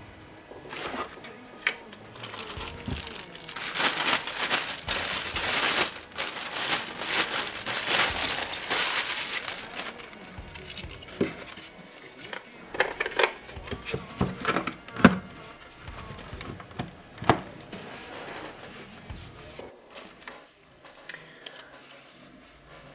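Plastic packaging bags rustling and crinkling as the parts of a fish finder are unwrapped, then several sharp clicks and knocks of hard plastic parts (the transducer, its mount and the display unit) being handled and set down, the loudest about fifteen seconds in.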